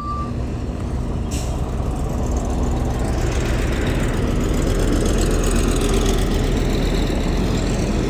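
Heavy diesel earthmoving machinery running steadily, with a brief hiss about a second in and a broad rush of noise swelling from about three seconds on.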